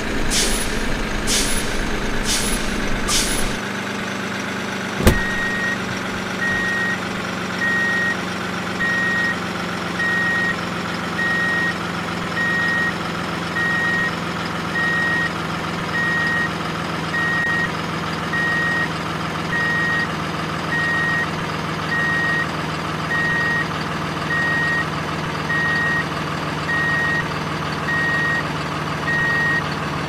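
Heavy truck engine running steadily, with a reversing alarm beeping about once a second from about five seconds in. A few short high hisses come in the first three seconds, and a sharp click just before the beeping starts.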